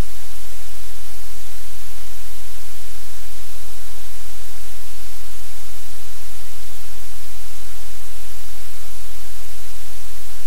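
Loud, steady static hiss with a low hum beneath it, unchanging throughout.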